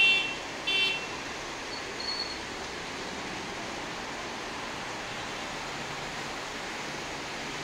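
Steady hiss of heavy monsoon rain over a street, with two short, high vehicle horn toots in the first second.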